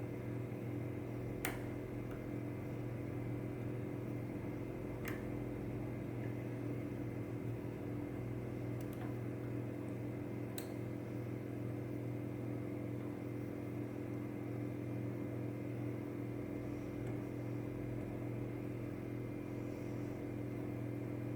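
A steady multi-tone background hum, with a few faint, widely spaced clicks from a pick working the pins of a Mul-T-Lock Interactive lock under light tension.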